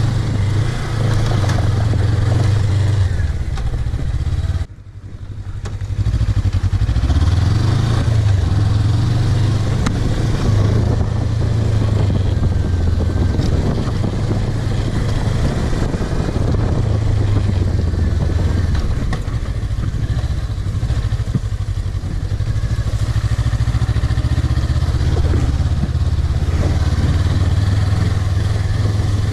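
Suzuki V-Strom 250's parallel-twin engine running under way, its pitch rising and falling with throttle changes. The sound briefly drops out about five seconds in.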